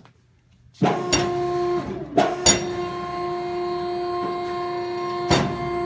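Baler ram motor on an industrial shredder's baler starting about a second in and running with a steady hum as the ram is run backwards, with a few sharp clunks along the way.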